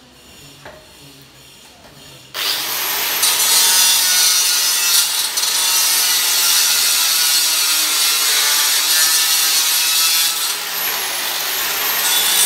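Handheld electric marble cutter starting up about two seconds in and cutting stone along a marble floor border: a loud, steady, high-pitched grinding whine.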